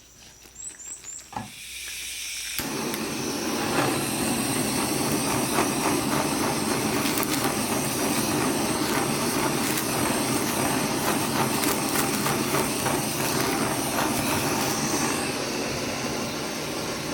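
Food sizzling and crackling in a hot pan, starting suddenly about two and a half seconds in and holding steady, with a few light clicks just before.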